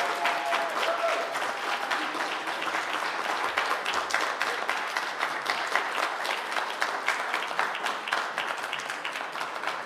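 A small crowd applauding steadily.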